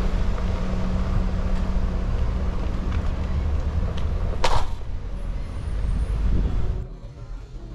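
Road traffic: a dense low rumble with a steady low engine hum, and one short sharp sound about four and a half seconds in. The rumble drops away abruptly near the end.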